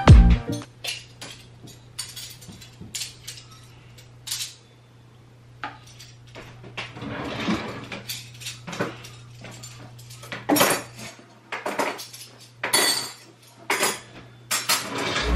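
Dishes and cutlery clinking and clattering as they are handled and put away, a long run of short sharp knocks and clinks, some grouped closely together, over a steady low hum.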